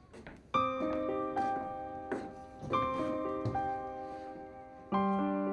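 Slow, gentle piano music: a chord struck about every two seconds, each left to ring and fade, with a few single notes in between.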